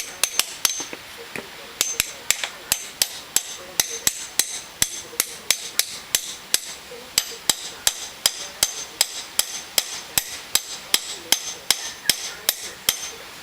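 Hammer tapping the end of a screwdriver bit and extension bar, about two to three light taps a second with a short pause about a second in, each tap with a bright metallic ring. The taps keep the bit seated in a seized crosshead screw of a Suzuki clutch casing while it is turned to free it.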